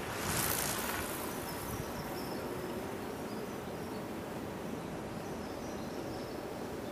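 Outdoor background hiss with faint, high-pitched insect chirring, and a brief rush of noise in the first second.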